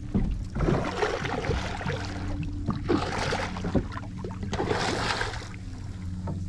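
A boat motor running steadily with a low hum, while three swells of rushing, hissing noise, like water or wind, rise and fall over it.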